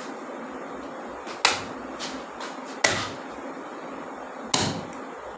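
Heavy knife chopping down through a large river fish behind the head: three hard chops about a second and a half apart, each a sharp knock onto the floor beneath.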